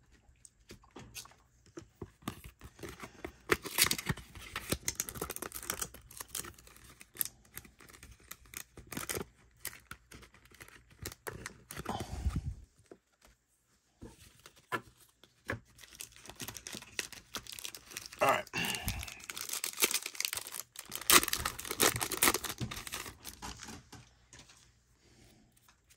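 A baseball card pack's wrapper being torn open and crinkled, with the cards rustling and clicking as they are handled. The noise comes in irregular bouts with a brief hush about halfway.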